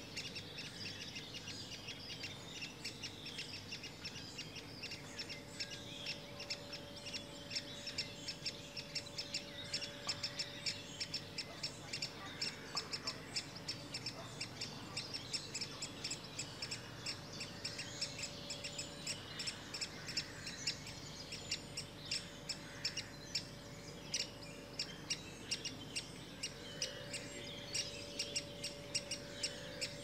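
Great spotted woodpecker nestlings begging from the nest hole: a rapid, unbroken chatter of short high calls, several a second.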